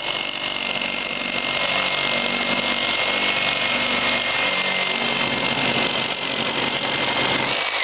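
Milwaukee M18 FUEL Super Sawzall cordless reciprocating saw cutting through steel pipe with a Torch metal-cutting blade, fed only by a hanging weight. It runs at a steady speed, a high motor whine over the blade's rasp, and cuts off at the very end as the blade breaks through the pipe.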